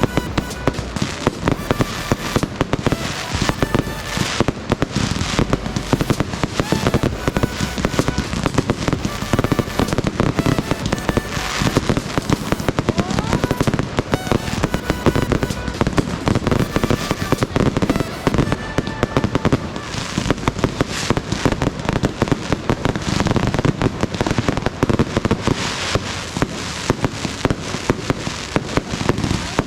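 Fireworks display: a dense, continuous run of bangs and crackles, with a short rising whistle about halfway through.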